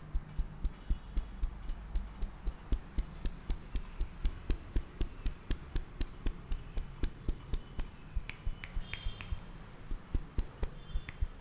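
Hands tapping and slapping rhythmically on a person's head in a massage, sharp claps with a dull thump beneath each, about four a second, pausing briefly near the end before a few more.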